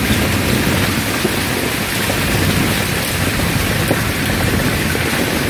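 Torrential rain from a thunderstorm pouring onto a street and balconies, a loud, steady hiss.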